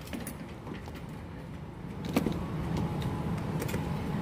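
Claw machine's motor running steadily as the claw moves over the prizes, with a few light clicks; a click about two seconds in, after which the hum is a little louder.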